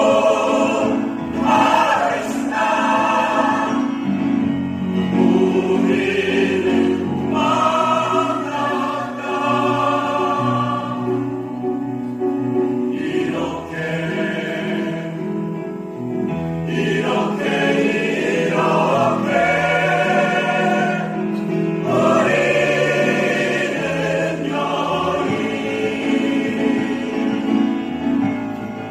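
A choir singing, holding long notes.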